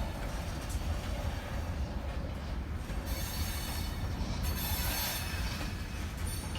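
Freight train cars rolling past: a steady low rumble of wheels on rail, with high-pitched wheel noise swelling about three seconds in and again around five seconds.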